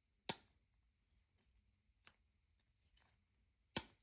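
Slipjoint blade of a Case-made Zippo Sodbuster Jr. pocket knife snapping on its backspring: two sharp, crisp clicks, one just after the start and one near the end, with a faint click about two seconds in. The crisp snap shows a backspring with good tension.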